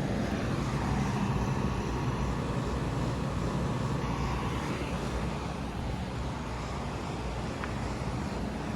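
Outdoor heat pump condensing units running in cool mode: a steady rush of the condenser fans over a low, even compressor hum.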